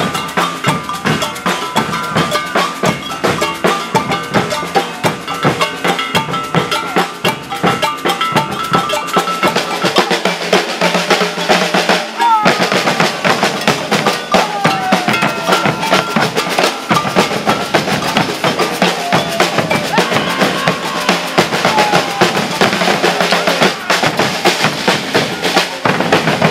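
Maracatu drum ensemble playing a fast, dense rhythm on the move: alfaia bass drums and snare drums, with a metal bell ringing over them.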